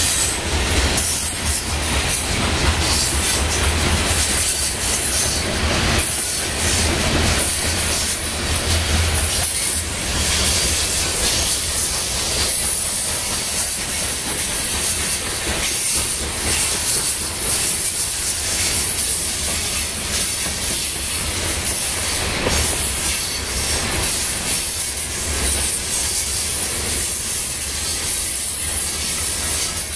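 Covered hopper cars of a grain train rolling past close by: steady noise of steel wheels on the rails, with repeated clicks as the wheels pass over the track.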